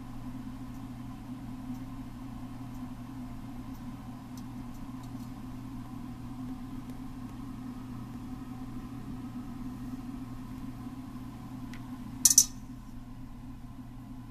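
Steady low background hum with a faint higher tone. One brief, sharp click near the end is the loudest sound.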